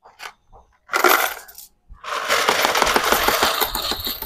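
A 20-peso coin clatters through the coin changer's slot about a second in, then about two seconds in the coin hopper starts paying out one-peso coins in a fast, continuous stream of metallic clinks as they pile into the tray.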